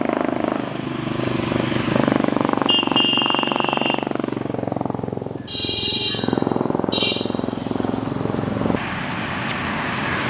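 Road traffic going past: vehicle engines running, with three short high-pitched tones about three, six and seven seconds in.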